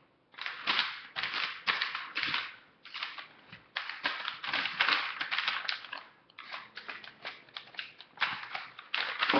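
A glue stick rubbed in quick, irregular strokes along a rolled sheet of paper, the paper crackling and rustling as it is handled.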